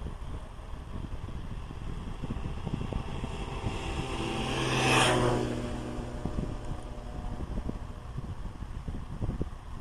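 A motor vehicle drives past, its engine and tyre noise swelling to a peak about halfway through and then fading away.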